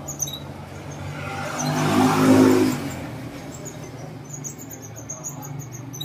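A motor vehicle passing on the road, swelling to its loudest about two seconds in and fading away within a second. Short high chirps of small birds are scattered through, coming thickest near the end.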